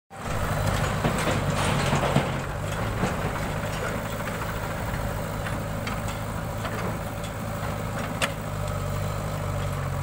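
Diesel engines of a JCB 3DX backhoe loader and a Swaraj tractor running steadily, with scattered knocks and clatter as the backhoe bucket digs and dumps soil into the tractor trolley. There is one sharp knock a little after eight seconds in.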